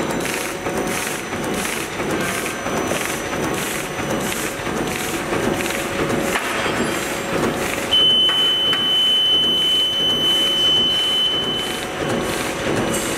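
Side-sealing bag-making machine running, its sealing and cutting stroke clattering about twice a second. About two-thirds of the way through, a steady high-pitched electronic tone sounds for about four seconds, then stops.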